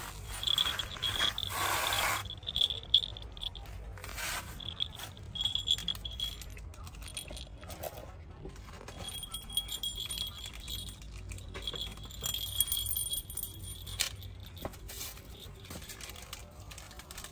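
Plastic snack wrapper crinkling in irregular bursts as a baby macaque handles and bites at a chocolate bar, loudest in the first couple of seconds, with small clicks and rustles.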